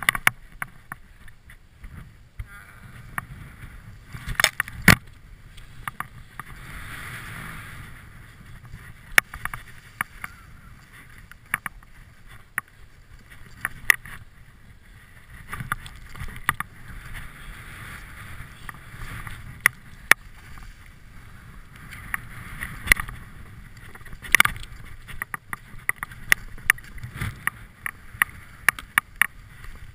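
Skis swishing through deep powder snow in repeated swells, with many sharp clicks and knocks scattered throughout over a low rumble.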